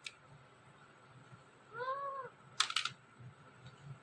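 Ringneck parrot giving one short call about two seconds in, a tone that rises and falls, followed by a quick run of sharp clicks.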